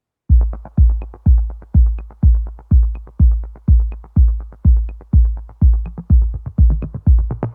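Electronic dance music: a heavy kick drum on a steady beat, about two beats a second, with light ticks between the kicks.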